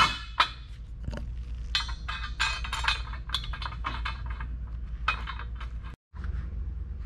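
Small metallic clicks and clinks of bolts being fitted by hand into the aluminium 80/20 extrusion of a solar-panel frame, over a steady low hum.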